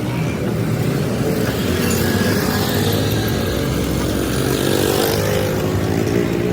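A vehicle engine running steadily, its pitch rising a little in the middle and settling again.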